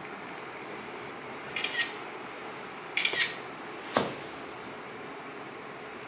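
Camera shutter sounds from a phone and a compact camera taking mirror selfies, three short clicks about a second and a half apart, the last one the sharpest.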